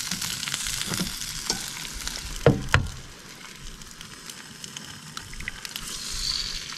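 Bratwurst and eggs sizzling in a frying pan on a camp stove, a steady hiss, with a few short knocks about two to three seconds in.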